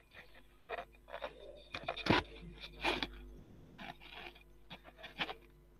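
Handling noise on a headset microphone as the headset is put back on: scattered rustles, scrapes and clicks, the loudest about two and three seconds in.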